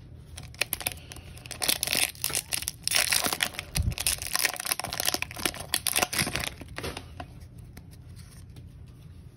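Foil wrapper of a Pokémon card booster pack crinkling and tearing as it is ripped open by hand, a dense run of crackles that dies down near the end.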